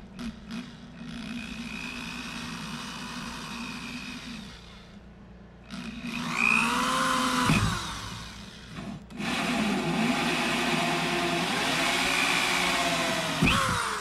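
DeWalt variable-speed drill driving a 1¼-inch hole saw through wood paneling, in several runs with short pauses about five and nine seconds in. The motor's pitch sags as the saw bites into the wood and rises again.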